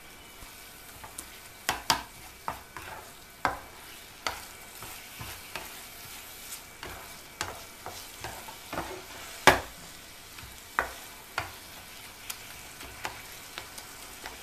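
Spatula scraping and knocking in a frying pan as mashed eggplant with onion and tomato is stirred and sautéed for baingan bharta, over a soft steady sizzle. The knocks come irregularly, about one a second, the loudest about halfway through.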